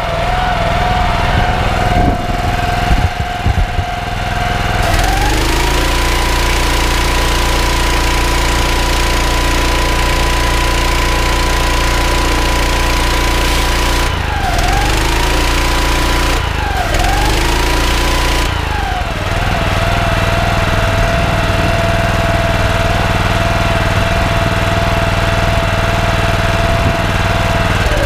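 Loncin G420 14 hp petrol engine driving a pressure washer pump under auto throttle control: it runs at low revs, revs up about five seconds in as the spray gun is triggered, dips briefly twice, then drops back to low revs a little past the middle when the trigger is released. Right at the end the engine note starts to fall away.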